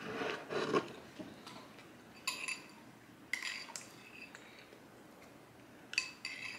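A spoon clinking against a cereal bowl three times, each clink ringing briefly, after a short patch of soft scraping noise in the first second.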